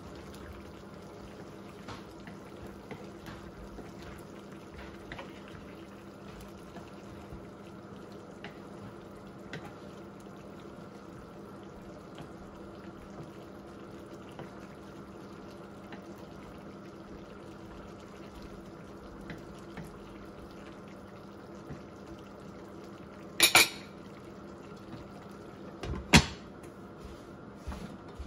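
Chicken liver adobo simmering in a frying pan while a wooden spatula stirs it: faint soft scrapes and ticks over a steady low hum. Near the end come two loud clanks, as the pan's glass lid is set on.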